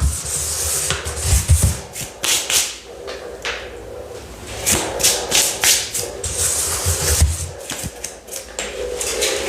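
Close-up tapping, clicking and rubbing on objects, irregular taps with scratchy hiss between them and a few low thuds.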